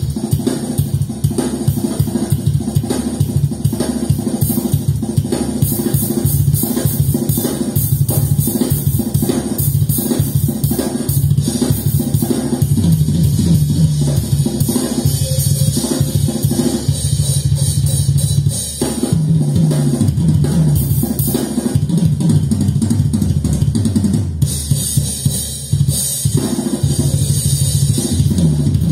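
A recorded drum kit played loud through Infinity Kappa 7 floor-standing hi-fi speakers in a room, as a speaker test. Dense rapid hits of deep bass drum and snare run under steady cymbal shimmer.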